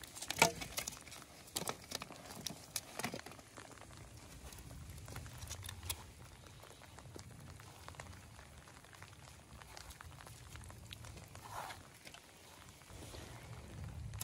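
Thin wooden slats clattering and cracking as they are broken and handled for kindling, with a handful of sharp knocks in the first three seconds, the loudest about half a second in. After that come quieter handling sounds as the sticks are stacked into a small teepee.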